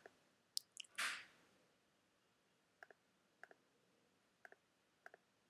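Faint computer mouse clicks, each a quick double tick of press and release, coming every second or so while edges are being selected one by one. A brief soft hiss comes about a second in.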